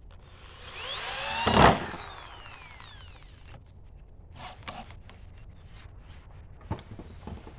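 Power drill driving a screw into wood: the motor whines up in pitch about a second in, binds and spins down, then a few light knocks of handling the wood follow.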